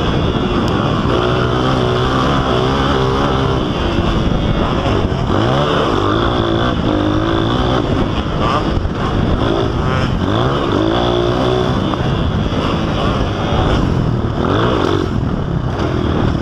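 Onboard sound of a Honda CRF230's single-cylinder four-stroke engine under hard riding, its pitch climbing and dropping again and again as it revs up through the gears and the throttle is rolled off.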